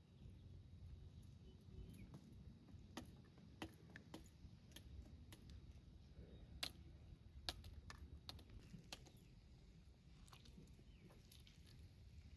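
Faint, irregular light clicks and taps, a few sharper ones in the middle, over a low steady rumble.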